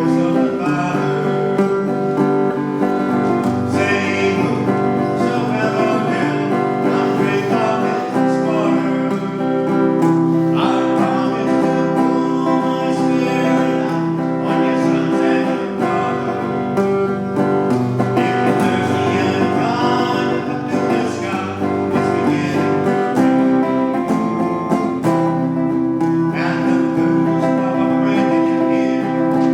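Music with guitar: steady sustained chords that change every few seconds.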